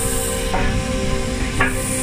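Southern Railway S15 class steam locomotive No. 825 getting under way slowly, with two exhaust beats about a second apart and steam hissing in bursts between them.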